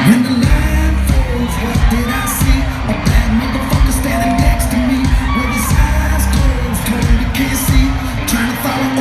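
Loud live rock concert music over a PA, heavy on the bass, with drum hits and singing over it.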